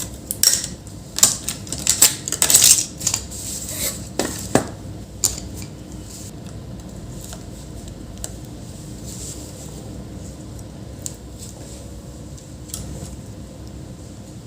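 Sharp clicks and small metallic knocks from a laptop RAM module being unclipped and pulled from its slot, bunched in the first five seconds, then a few single ticks over a steady low background noise.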